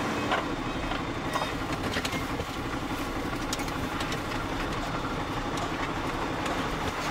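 Truck engine running steadily, heard from inside the cab, with a few light clicks and rattles over the hum.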